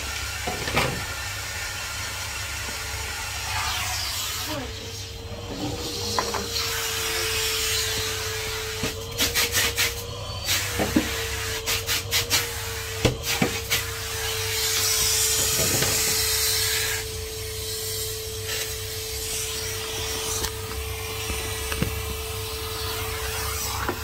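Numatic Henry HVR200 620 W cylinder vacuum cleaner running, its motor a steady whine, while the hose and floor tool rub and knock against the floor and furniture. A run of clacks comes near the middle, and the suction rushes louder for a couple of seconds about two-thirds through.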